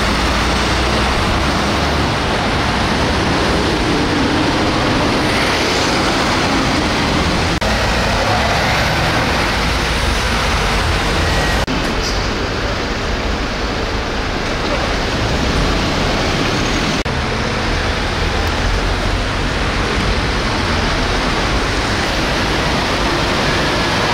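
Steady city street traffic noise with vehicle engines running, changing abruptly a few times.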